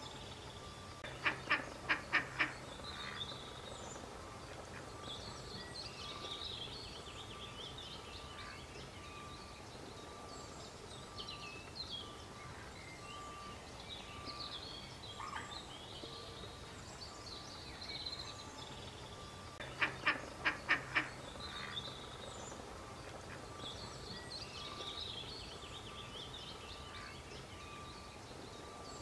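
Duck quacking in two quick runs of about five quacks each, near the start and about two-thirds through, over continual high chirping calls and a faint steady pulsing tone.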